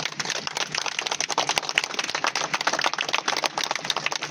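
A crowd applauding, many hands clapping densely and irregularly.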